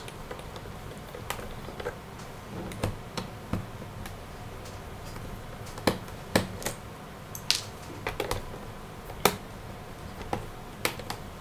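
Scattered small clicks and ticks of a screwdriver working on the screws of a laptop's plastic hard-drive bay cover, coming irregularly about once a second.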